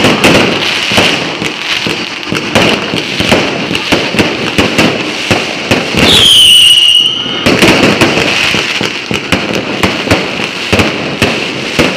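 Fireworks display: a rapid, irregular string of bangs and crackling from aerial shells. About halfway through, a firework's high whistle drops a little in pitch and holds for about a second and a half.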